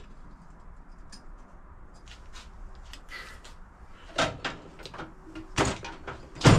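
A few short, sharp knocks and clunks at irregular spacing, the loudest one near the end.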